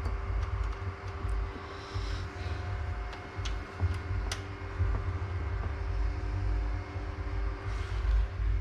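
Light clicks and taps of a computer case and its parts being handled, over a low rumble and a steady faint hum.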